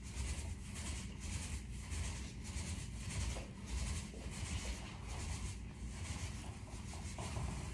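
Repeated rubbing strokes, about two to three a second, over a low rumble.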